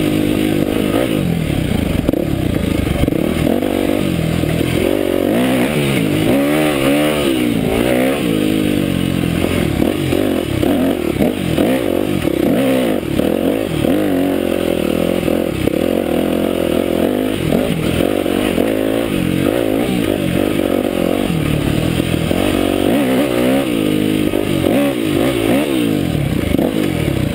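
Dirt bike engine under way, its pitch climbing and falling back again and again as the throttle is opened and closed through the ride.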